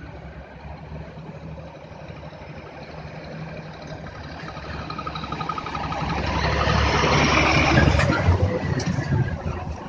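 Scania P400 fire engine's diesel engine running as the truck drives up and passes close by, growing louder to a peak about eight seconds in, then easing off.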